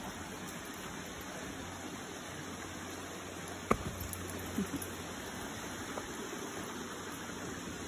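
Steady rushing of a creek's running water, with one sharp click about three and a half seconds in.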